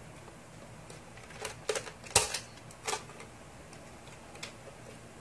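A handful of sharp plastic clicks and clacks from a toy foam-dart blaster being handled, the loudest a little after two seconds in, with one fainter click near the end.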